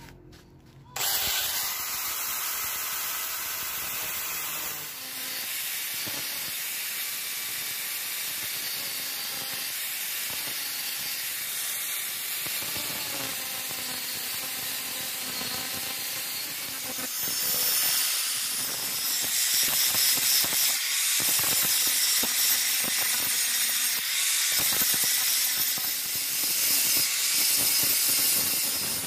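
Electric angle grinder starting about a second in and cutting into a steel sword blank made from a motorcycle brake disc with a thin cut-off disc: a steady hiss of abrasive on metal over the motor's whine. It grows louder past the middle, where a blue grinding disc works along the blade's edge.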